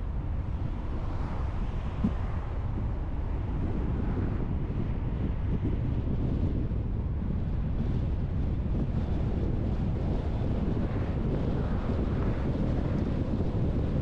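Steady rumble of road and wind noise from a car driving along, with one brief click about two seconds in.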